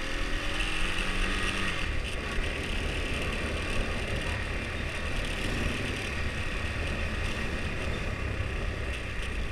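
Husqvarna Svartpilen 401's single-cylinder engine running on its stock exhaust while riding, with a steady low rumble under wind and road noise.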